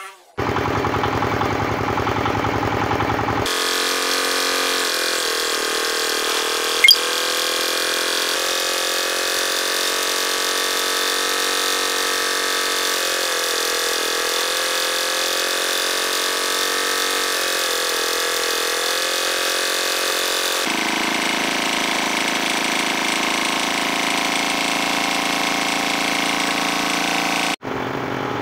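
Horizontal boring attachment of a woodworking planer machine running steadily, its drill bit boring slot holes into turned wooden table legs, the pitch sagging slightly now and then under the cut. A sharp click about seven seconds in, and the sound changes abruptly a few times.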